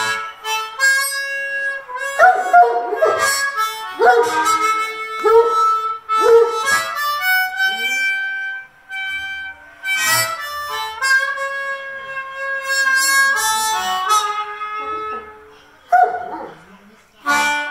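Blues harmonica played cupped against a handheld microphone, with held and bending notes. A Redbone Coonhound howls along with it.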